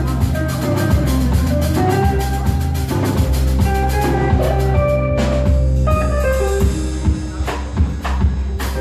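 Live band of drum kit, electric bass, guitar, keyboard, violin and oud playing an Arabic folk song. The drummer's busy cymbal pattern drops away about five seconds in, leaving the melody over the bass and sparser drum hits.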